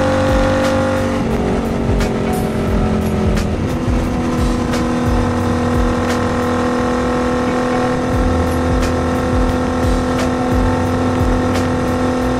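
2019 Royal Enfield Continental GT 650's parallel-twin engine, fitted with a Diablo full exhaust, running steadily under way at road speed. About a second in the engine note drops and wavers for a couple of seconds, then settles into a steady, slightly lower note.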